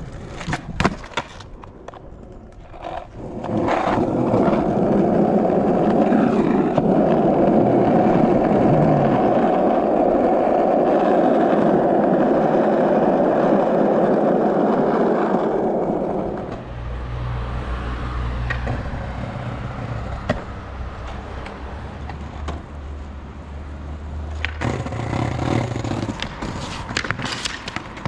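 Skateboard wheels rolling over rough pavement: a loud, steady rumble from about four seconds in to about sixteen seconds, then a lower, quieter rumble. Sharp clacks of the board hitting the ground near the start and again near the end.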